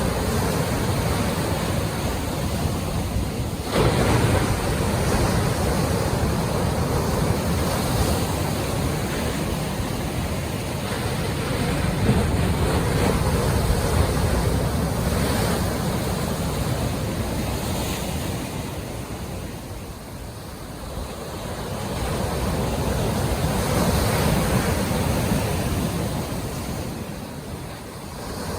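Ocean waves breaking and washing onto shore, a continuous surf that swells and ebbs every several seconds, with a stronger wave crashing about four seconds in.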